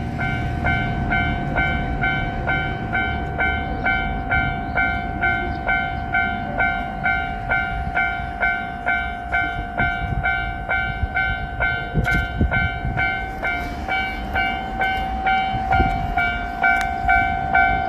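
Japanese level-crossing alarm bell dinging steadily, a little under two strikes a second, over a held electronic tone. A low train rumble dies away over the first several seconds, and a couple of sharp knocks come later.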